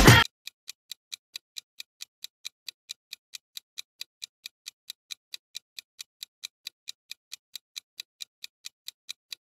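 Countdown-timer clock-tick sound effect: rapid, even ticks, several a second, counting down the answer time. Music cuts off just as it begins.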